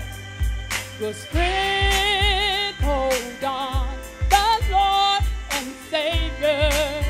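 Gospel song with a woman singing lead, with wide vibrato on held notes, over a steady beat from the band.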